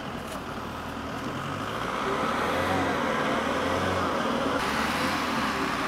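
Motor vehicle traffic noise: a car's engine and tyres running, growing louder about two seconds in and then holding steady.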